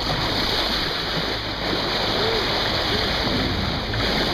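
Steady rush and splash of sea water along a moving boat's bow, with a few faint, short gliding tones in the middle.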